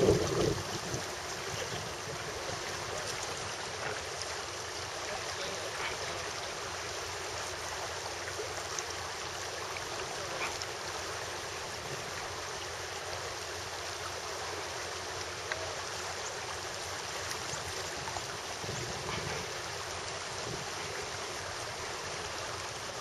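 Shallow river water rushing steadily over a riffle.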